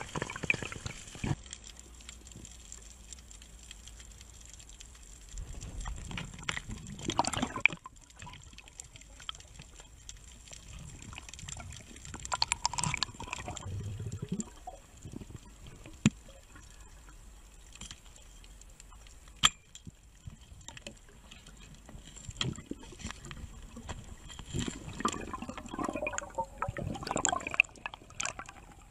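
Underwater sound picked up by a diver's camera: muffled water noise that swells louder a few times, with scattered sharp clicks and knocks, two of them standing out in the middle.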